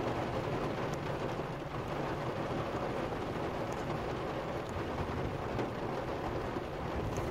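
Heavy rain falling steadily on a car's roof and windshield, heard from inside the car, with a few faint drop ticks.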